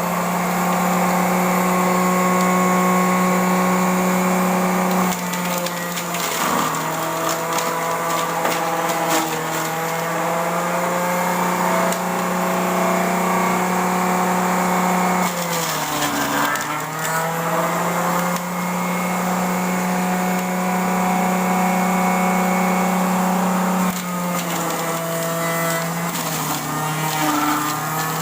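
Electric blender motor running steadily as it blends carrot and calamansi. Its pitch sags and recovers a few times as the load on the blades changes, most deeply about halfway through.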